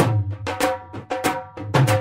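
Background music with a steady, brisk drum beat over a held tone.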